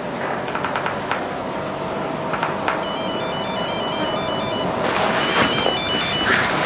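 Mobile phone ringtone: a short electronic beeping melody that starts about three seconds in, stops briefly and plays again, over a steady background hiss.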